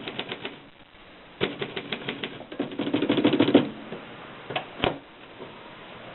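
Continental manual typewriter being typed on: quick runs of key strikes, a short pause, then faster bursts with a dense run about three seconds in, ending with a few separate heavier clacks.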